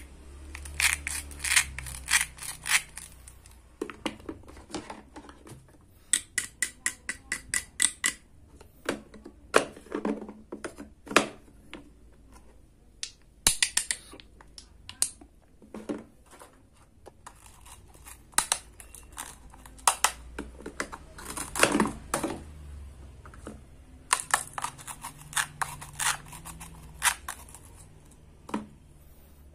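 Toy cut-fruit pieces and a wooden toy knife being handled: hard wooden and plastic pieces clicking, tapping and knocking together in irregular clusters of sharp taps, with a few louder knocks.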